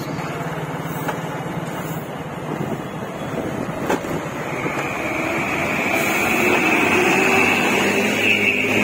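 Motor vehicle engine running with road noise while driving along a street, growing slightly louder toward the end; a high steady whine joins about halfway through.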